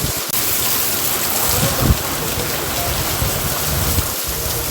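Heavy rain pouring down with a steady, dense hiss, and a thump about two seconds in.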